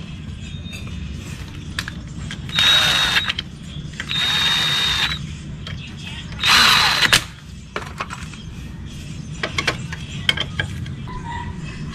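Cordless drill-driver running in three short bursts of about a second each, with a steady high whine, spinning in bolts on a motorcycle's engine side case. A few sharp clicks follow near the end, from a hand ratchet being worked.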